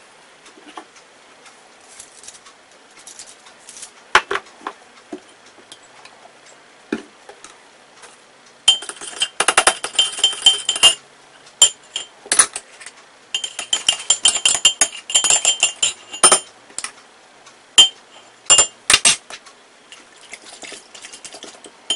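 A metal spoon stirring sauce in a glass measuring cup, clinking rapidly against the glass in two runs of a few seconds each, the glass ringing with each clink, with single taps scattered between.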